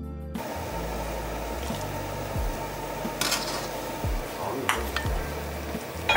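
Dumplings boiling in a stainless steel pot: a steady hiss and bubbling of boiling water, with a few clinks of a metal utensil against the pot, the loudest near the end.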